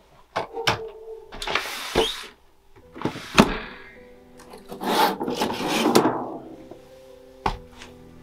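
A window being unlatched and opened by hand: a few clicks and knocks, then two longer scraping slides, about two seconds in and again around five seconds in. Soft background music with held tones comes in underneath about three seconds in.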